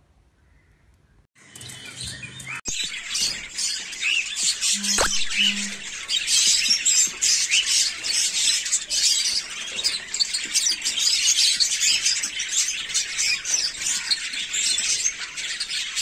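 Lovebirds chirping: a dense, continuous chatter of many overlapping high calls that starts abruptly about a second and a half in.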